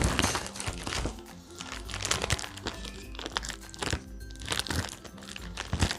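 Plastic packaging crinkling and rustling as a parcel is handled and opened, with background music playing.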